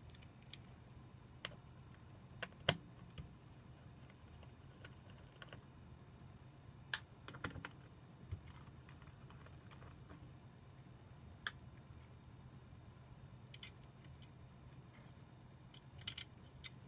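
Scattered small clicks and taps of a Torx screwdriver and screws being worked on a Mac Mini's chassis, about a dozen at irregular intervals. A faint steady low hum lies under them.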